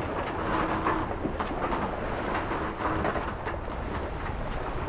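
Inside a sailboat's cabin underway: a steady rush of water along the hull, with frequent small knocks and a couple of short creaks as the boat works.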